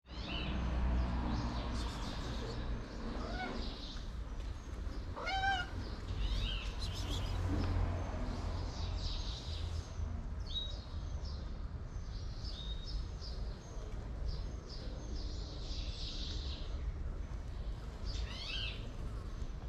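Hungry stray cat meowing several times in short, arched calls over a low steady rumble.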